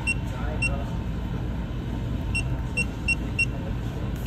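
Six short, high electronic beeps as a six-digit code is keyed into a maglock access-control keypad with its handheld remote: two beeps, a pause, then four in quick succession. A low steady rumble runs underneath.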